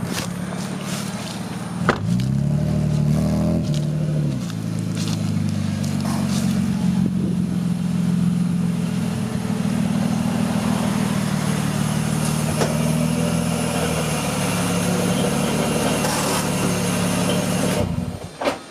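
Car engine running while driving: its pitch rises about two seconds in as the car pulls away, then it runs steadily and stops abruptly near the end.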